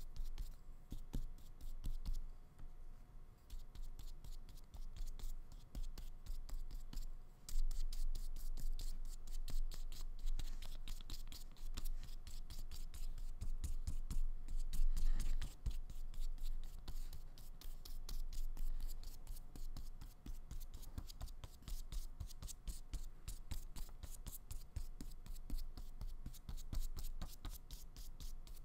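Flat paintbrush with acrylic paint scrubbing and dabbing across paper in quick, scratchy strokes, busiest from about seven seconds in.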